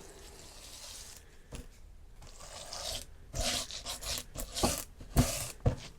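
Wax-coated roller scraping and rubbing across plastic beehive frame foundation. It starts as a faint steady hiss, then from about three seconds in comes a run of quicker, louder scraping strokes.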